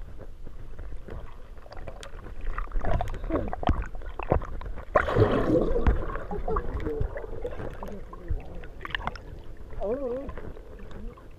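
Water swirling and bubbling around a submerged camera, muffled and close, with scattered small clicks and knocks. About five seconds in comes a louder rush of bubbles as a swimmer's body stirs the water beside the lens.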